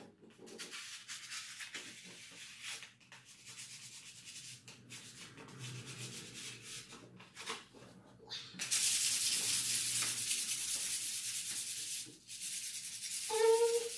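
Hand sanding of a bare wooden stair handrail with a small piece of sandpaper: irregular scratchy rubbing strokes that turn louder and steadier about two-thirds of the way through.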